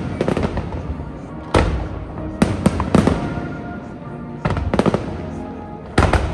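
Aerial fireworks shells bursting with sharp bangs, each ringing on in a low rumble. A quick run of three comes around two and a half to three seconds in, two more near the fifth second, and a heavy one near the end.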